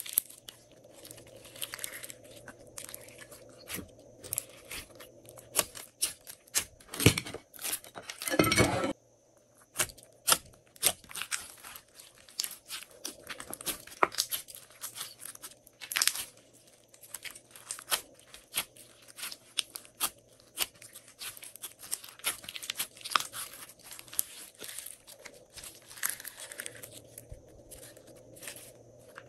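Pink glossy slime with small beads mixed in, being stretched, squeezed and kneaded by hand: a busy run of sticky clicks, crackles and little air pops. A louder burst lasting about a second comes about eight seconds in.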